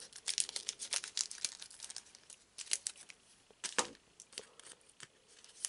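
Foil booster-pack wrapper being cut open with scissors and handled, crinkling in quick, scattered crackles.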